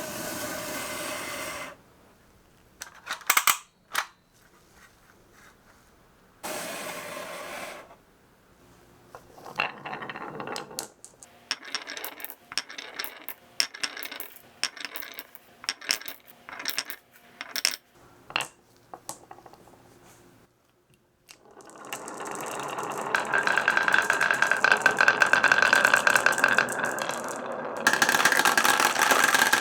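Glass marbles rolling and clacking down a wooden marble run. Short rolls along the wooden slopes are broken by a few sharp clicks. In the middle comes a long string of quick clacks as marbles drop and bounce through the track. Near the end there is a long steady roll with a ringing note in it.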